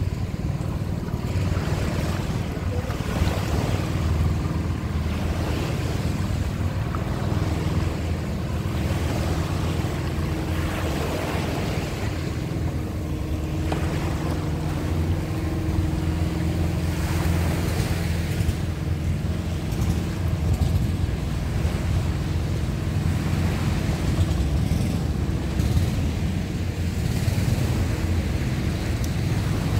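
Small waves washing up on a sandy beach, swelling and falling back every few seconds, over a steady low rumble.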